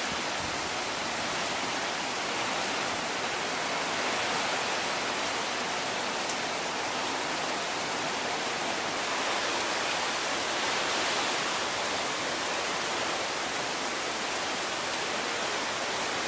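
Heavy rain pouring down steadily, an even hiss that does not let up.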